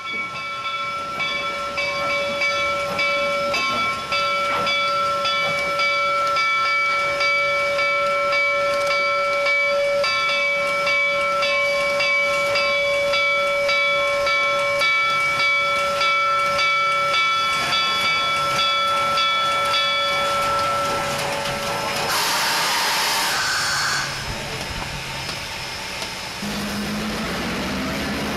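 Steam locomotive bell on Reading T-1 4-8-4 No. 2102 ringing steadily, struck about twice a second, for about the first 20 seconds. About 22 seconds in comes a loud two-second blast of steam hiss. Near the end a passing diesel locomotive's engine comes in with a rising drone.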